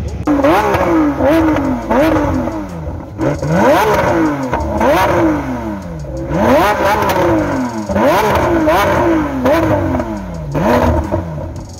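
A car engine revved over and over with quick throttle blips, each rise in pitch sharp and each fall back slower.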